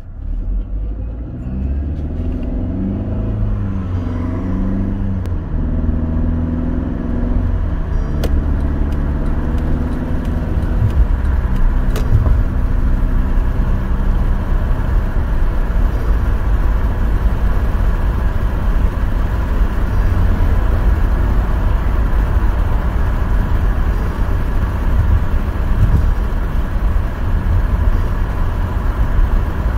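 Mercedes car heard from inside the cabin, accelerating. The engine's note rises and drops several times over the first 14 seconds or so as the automatic gearbox shifts up. After that it gives way to a steady low rumble of engine and road noise at cruising speed.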